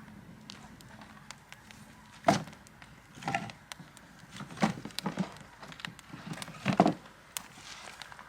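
Five separate sharp knocks, spaced about a second apart, the last near the end the loudest.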